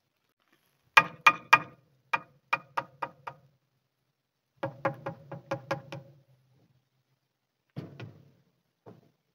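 Claw hammer driving nails into the corner of a timber frame: two quick runs of about eight ringing blows each, then a few lighter taps near the end.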